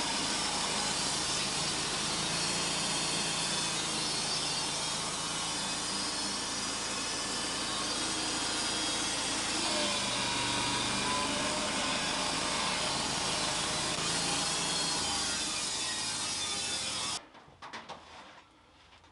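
Wood-Mizer portable band sawmill cutting through a western red cedar log with a steady, loud sawing noise, which stops abruptly near the end, leaving a few faint knocks.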